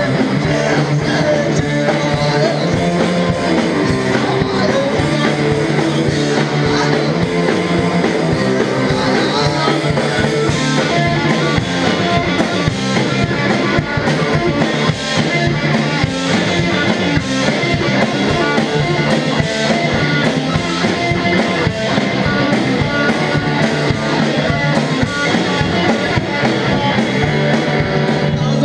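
A live rock band playing: electric guitar, bass guitar and drum kit, with a steady drum beat running throughout.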